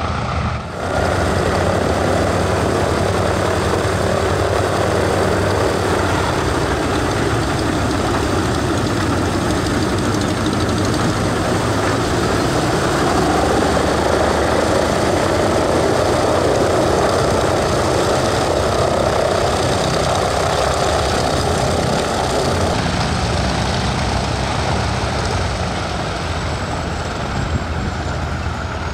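The two Pratt & Whitney R-1830-92 fourteen-cylinder radial engines of a Consolidated PBY-5A Catalina run steadily at low power with the propellers turning as the flying boat taxis. The sound dips briefly just under a second in, grows a little louder through the middle, and eases somewhat about 23 seconds in.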